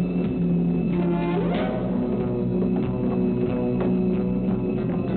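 Film soundtrack music: held notes over steady drum hits.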